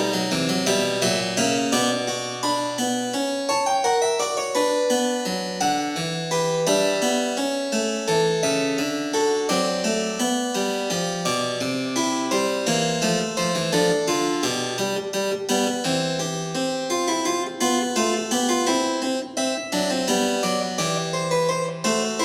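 Background music: a harpsichord-like keyboard playing a steady run of notes.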